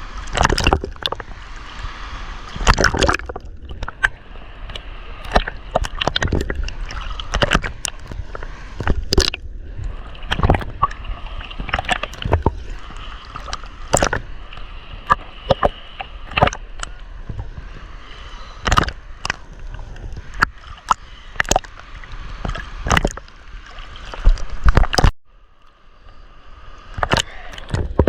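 Sea water sloshing and gurgling around a camera held under the surface, with frequent irregular sharp clicks and knocks. The sound drops out briefly near the end.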